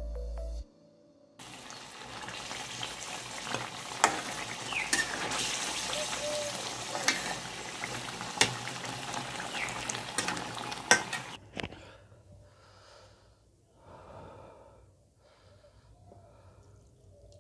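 Pork gravy frying in a two-handled metal wok, a steady sizzle with a few sharp clicks and scrapes of a metal spatula against the pan, stopping about two-thirds of the way through. After it come faint, intermittent soft sounds as rice and pork are mixed by hand on a steel plate.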